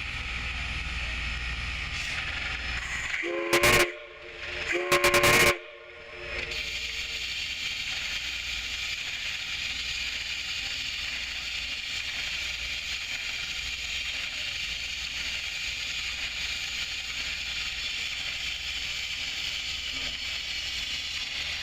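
The steam whistle of Southern Railway 4501, a 1911 Baldwin 2-8-2 Mikado, blows two blasts about three and a half and five seconds in, a chord of several steady tones, signalling the locomotive's departure. A steady hiss runs under and after the blasts.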